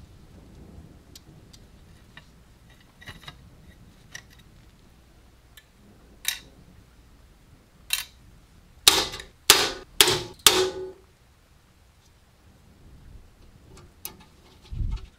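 Light clicks and taps of metal parts being handled and fitted, then four sharp knocks about half a second apart a little past the middle.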